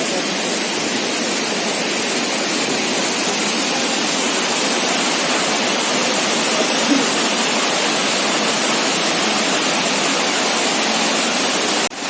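Waterfall: the steady rush of falling water, dipping for an instant near the end.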